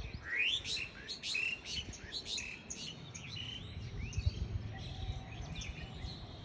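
Small birds chirping: many short, quick calls, several rising sharply in pitch, in an irregular run.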